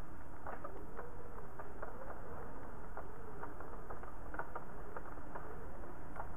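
Rain pattering, with irregular drops tapping on a window over a steady hiss of rainfall. A faint whistle of wind rises and falls slowly underneath.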